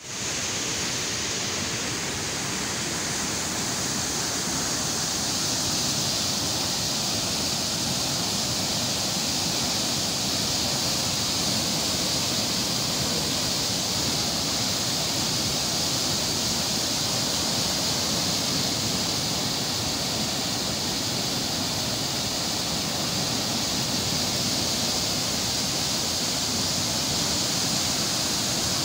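Heavy canal water rushing through the sluice gates of a canal head regulator and churning as white water below them: a steady, even rush with no breaks.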